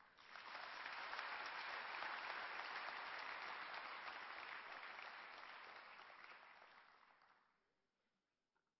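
Audience applauding after a poetry reading, swelling within the first second, then fading away about seven seconds in.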